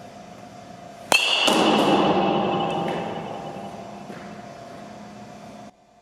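A metal baseball bat strikes a ball about a second in: one sharp ping with a short ring. A loud rush of noise follows and fades over a few seconds, then cuts off suddenly near the end.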